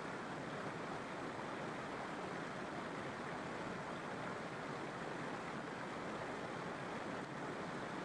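Waterfall water rushing steadily, an even, unbroken hiss with no separate splashes.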